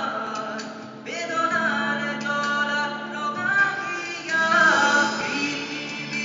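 A singer performing a song over a pre-recorded backing track, the voice gliding between notes over steady accompaniment, with a brief dip about a second in.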